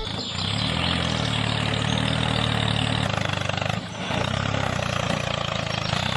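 An engine running steadily at an even pace, dipping briefly about four seconds in.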